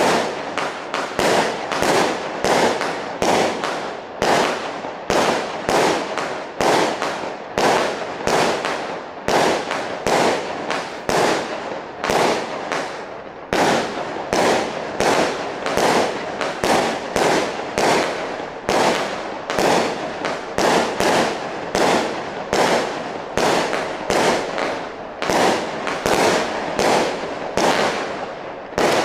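Black Cat 'Spectre' single-ignition firework cake firing a continuous barrage, its shots going off one after another at about two a second, each a sharp bang with a brief fading tail.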